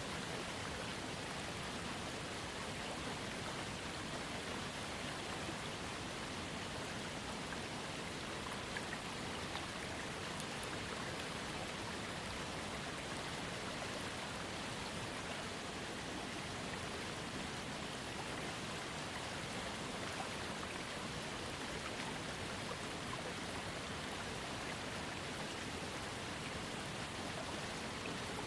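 Small waterfall on a trickling creek: water falling and splashing in a steady, unbroken rush.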